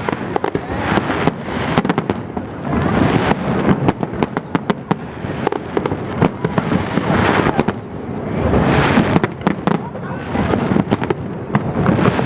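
Fireworks display: a dense run of sharp bangs and crackles in quick succession over a continuous rumbling wash, swelling in waves a few seconds apart.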